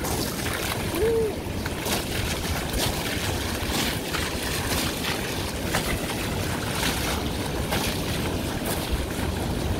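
Mitsubishi Pajero Full 4x4 driving through a shallow river: a steady rush of churned water with repeated splashes, over a low rumble and wind buffeting the microphone.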